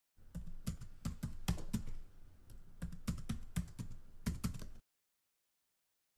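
Computer-keyboard typing sound effect: a quick run of keystroke clicks, easing briefly about two seconds in, then cutting off suddenly a little before five seconds.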